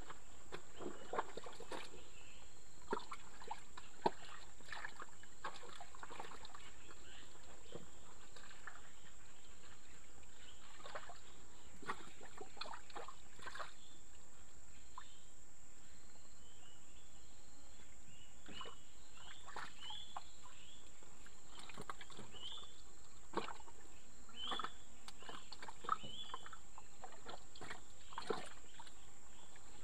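Outdoor ambience: a steady high-pitched insect drone, with scattered faint splashes and rustles and a few short chirps.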